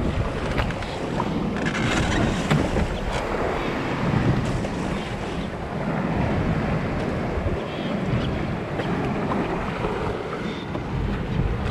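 Choppy sea washing and splashing around a small wooden boat and against a rock, with wind buffeting the microphone.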